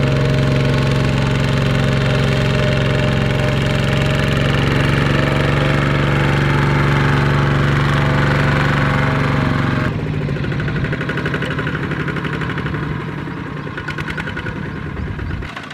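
Single-cylinder diesel engine of a two-wheel walking tractor running steadily under load as it pulls a trailer of rice sacks. About ten seconds in the sound switches abruptly to a quieter, clattering engine note from another such tractor, which fades a little near the end.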